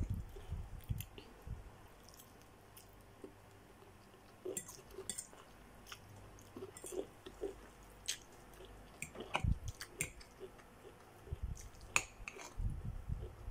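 Close-up chewing of a mouthful of noodles, with scattered light clicks of a fork against the bowl.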